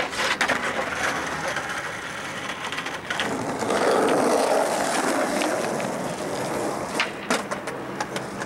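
Skateboard wheels rolling over rough asphalt, with a few sharp clacks of the board, one about three seconds in and two close together near the end.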